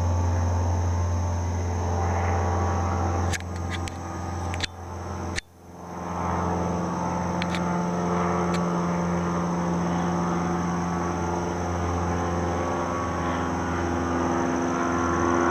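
A steady engine drone with a deep hum and several pitched overtones. A few sharp clicks and abrupt drops break it between about three and six seconds in, after which the drone comes back.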